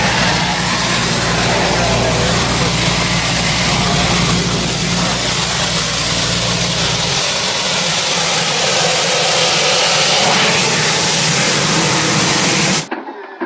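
EcoJet concept car's helicopter gas-turbine engine, a Honeywell LTS101, running loudly and steadily: a dense rushing whoosh with a thin high whine that rises slightly after about eight seconds. A deeper rumble under it drops away about seven seconds in, and the sound cuts off near the end.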